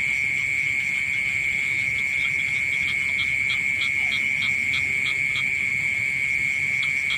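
Night chorus in a rice field: an unbroken high trill, typical of a mole cricket, runs steadily throughout. Over it, a frog calls in short repeated notes, about three a second, from about two seconds in to five and a half, and again near the end.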